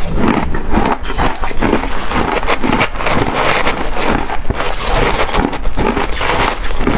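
A person chewing and crunching shaved ice: a continuous, irregular run of crackling bites and cracks.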